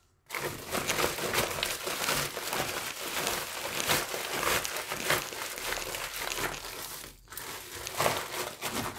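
A woven plastic sheet crinkling and rustling continuously as hands knead hot steamed wheat-flour dough (khichu) through it, mashing it smooth, with a brief break about seven seconds in.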